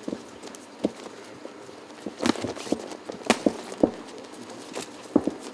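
Boxers' footsteps on the ring canvas: irregular sharp knocks and thuds of feet stepping and stamping, a cluster of them close together in the middle, over a low steady background hum.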